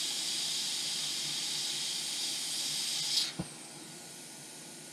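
Hot-air rework station blowing a steady hiss from its nozzle, its airflow set high enough to push the small diode off its pads. The hiss cuts off abruptly a little after three seconds in, followed by a light click.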